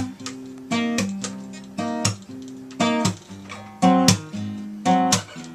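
Acoustic guitar strumming chords in an instrumental break of a singer-songwriter song, a strong strum about once a second with the chords ringing between strokes.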